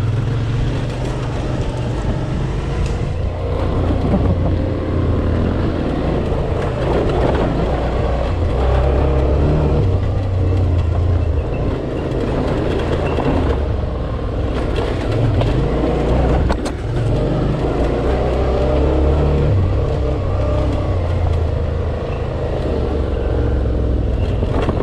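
Dual-sport motorcycle engine running under load off-road, its revs rising and falling in steps with the throttle.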